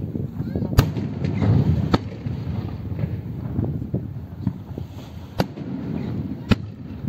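Fireworks bursting: four sharp, separate bangs spread over several seconds, with a steady low background noise between them.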